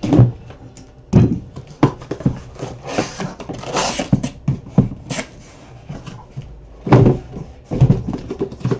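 Cardboard shipping case being opened and handled by hand: knocks, scraping and rustling of cardboard as a sealed box of trading cards is slid out, with loud knocks just after the start, about a second in and around seven seconds in.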